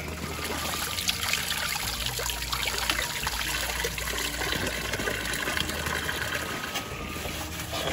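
Water running in a steady stream from a bamboo pipe spout, splashing over a fish being rinsed under it and onto the ground.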